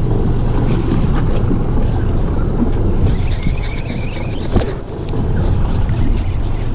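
Wind buffeting the microphone and water washing against a small boat's hull, a steady low rumble, with a single sharp click about four and a half seconds in.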